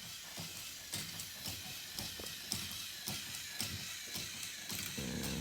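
Irregular plastic clicking and rattling from a K'nex roller coaster model, over a steady hiss, with a low hum coming in near the end.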